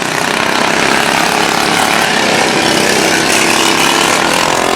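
Several racing lawn mower engines running hard as the mowers pass, the sound building over the first second and then holding steady.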